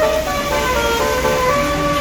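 Bus telolet horn (a Basuri multi-tone air horn) playing a quick melody of short notes, then holding one long note from about one and a half seconds in, with a low rumble underneath.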